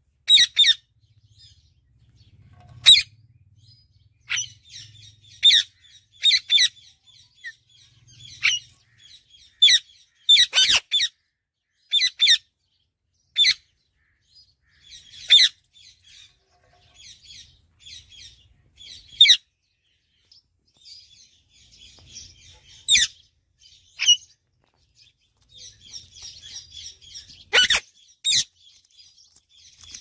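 Indian ringneck parakeets calling: short, sharp, high-pitched calls at irregular intervals, a second or a few seconds apart, with quieter chattering in between that picks up near the end.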